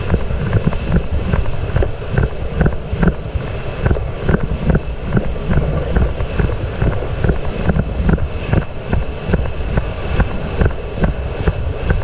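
Wind buffeting the rider's action-camera microphone as a racehorse gallops on a dirt track, with a regular beat a little over twice a second from the horse's galloping stride.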